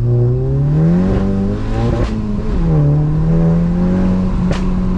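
Mk7 VW Golf GTI's turbocharged 2.0-litre four-cylinder, through a loud Cobra Sport turbo-back exhaust, heard from inside the cabin. It revs up hard in first gear, and revs drop at an upshift about two seconds in with a sharp crack. It then pulls steadily in the next gear, with another crack near the end.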